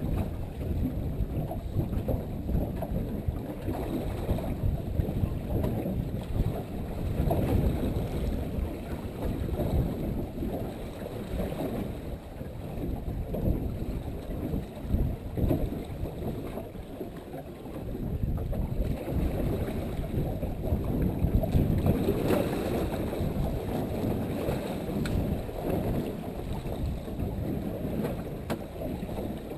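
Wind buffeting the microphone aboard a small boat on the sea, a gusting low rumble that rises and falls, easing briefly a little past halfway.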